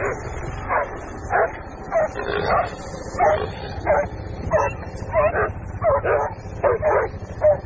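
Dog barking and yelping repeatedly, short sharp calls about two a second, over a steady low rumble.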